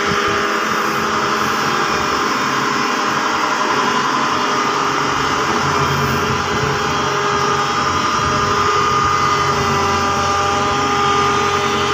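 Caterpillar CS533E single-drum vibratory roller's diesel engine running steadily as the roller drives past close by.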